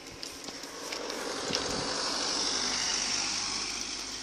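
A car passing on the road: its tyre and engine noise swells, then fades away.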